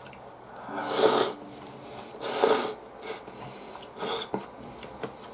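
Cold ramen noodles (hiyashi chuka) being slurped off chopsticks: about four slurps, the two loudest about a second and two and a half seconds in, with shorter ones after.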